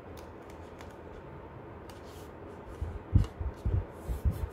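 Light rustling and crinkling of tape as hands press and pull it along the edges of a wooden box. From about three seconds in comes a run of louder low thumps and knocks from the hands working the box against the table.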